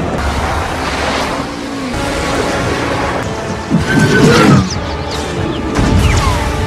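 Action-film soundtrack: dramatic music mixed with vehicle and crash sound effects. There is a loud crash-like burst with sliding whines about four seconds in, and another heavy low boom around six seconds.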